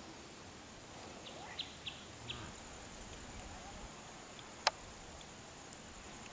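Faint open-country ambience with a thin steady high tone, a few short bird chirps in the first couple of seconds, and one sharp click a little past the middle.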